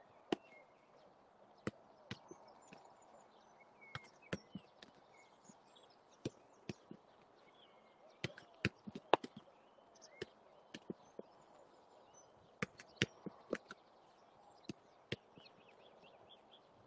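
Football being passed back and forth: irregular sharp knocks of foot striking ball, about one or two a second, some in quick pairs as the ball is received with one touch and passed back.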